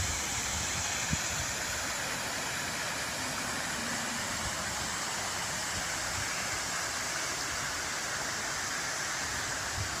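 Steady splashing hiss of a garden water fountain, its jets falling into the basin.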